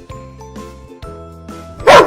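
Light background music with soft chiming notes over a bass line. Near the end a dog begins a loud bark, the Doberman whose barks the section presents.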